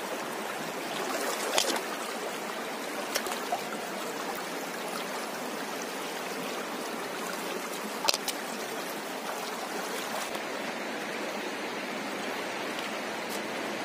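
Shallow river water running steadily over stones, with a few brief splashes as a hand reaches into the water, the loudest about eight seconds in.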